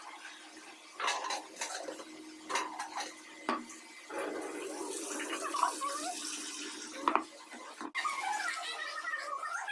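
Kitchen dishes and utensils knocking and clinking, several separate sharp knocks, with a stretch of running water in the middle.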